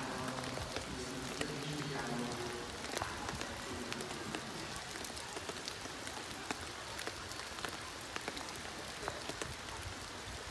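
Steady rain falling, an even hiss with many scattered sharp ticks of drops landing close by.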